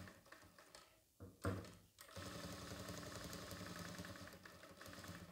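Jack F4 industrial lockstitch sewing machine stitching slowly, a steady low motor hum with a fast, even needle ticking, starting about two seconds in. A brief knock comes just before it starts.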